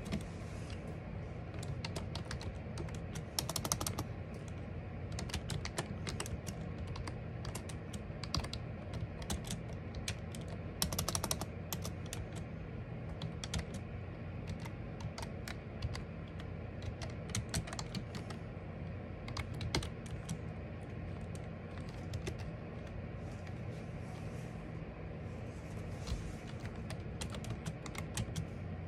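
Typing on a computer keyboard: irregular runs of key clicks with short pauses, over a steady low hum.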